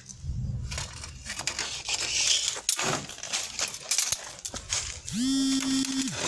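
Rustling with scattered light clicks and knocks of handling. About five seconds in, music comes in with a long held synth-like note.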